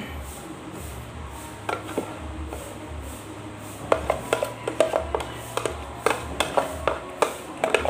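A plastic food tub being tipped up and knocked by hand to shake the last bits out, a quick string of sharp plastic clicks and taps from about halfway through. A faint low beat of background music runs underneath.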